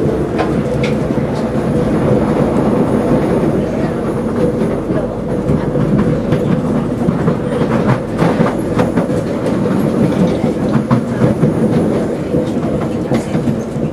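SMRT C751B metro train running along the track, heard from inside the car: a steady rumble of wheels on rail with a steady hum. Sharp clicks from the track come through, most of them about eight seconds in and near the end.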